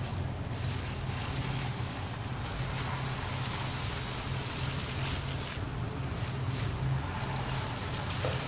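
Purple yam cakes sizzling in a pan of hot cooking oil as they fry, a steady crackling hiss, with a low steady hum beneath it.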